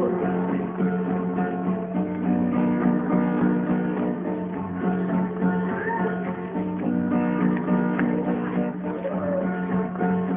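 Acoustic guitar strumming chords in an instrumental passage, with no singing.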